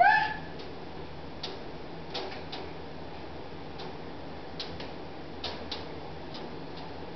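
A short, high, slightly rising squeak at the very start, then faint clicks and light taps at irregular intervals.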